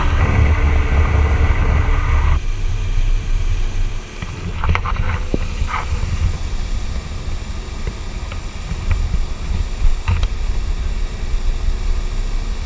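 Small aluminium motorboat running at speed, with wind buffeting the microphone over the rush of spray off the hull. A steady engine tone is clear in the first two seconds or so and then drops out, leaving mostly wind and water noise.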